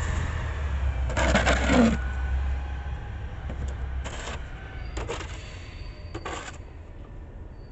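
Plastic snow shovel scraping along a concrete sidewalk in several pushes, the longest and loudest about a second in. Under it a garbage truck's low engine hum fades out about three seconds in as the truck drives off.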